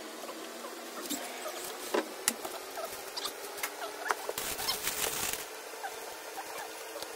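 Plastic wardrobe panels and small plastic connector pieces being handled: scattered clicks and light knocks, with short high squeaks of plastic rubbing on plastic. About four and a half seconds in, a second-long scraping rustle as a panel is slid across and stood upright.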